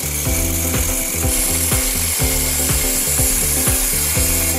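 Electric angle grinder grinding into a steel hammer head, a steady high grinding hiss. Background music with a steady beat plays under it.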